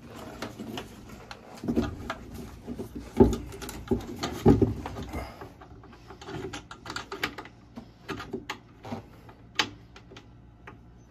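Metal furnace parts being handled and fitted by hand: irregular light clicks and taps, with two louder knocks a few seconds in.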